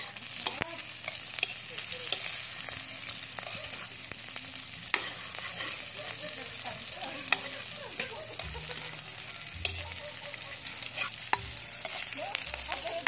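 Chopped garlic and onion sizzling in hot oil in a metal wok, with a steady hiss. A spatula stirs and scrapes through them, knocking and clicking against the pan now and then.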